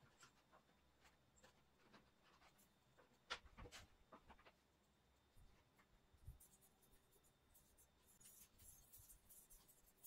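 Faint scratching and light taps of a piece of chalk drawn across a cement floor in short strokes, with a denser run of scratching over the last few seconds.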